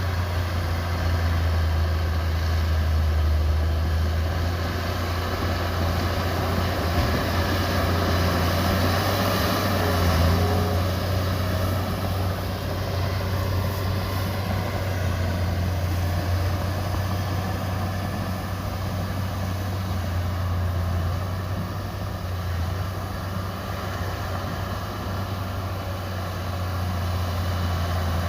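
Heavy diesel engine of earthmoving machinery running steadily, a continuous low drone that swells a little about ten seconds in and eases off later.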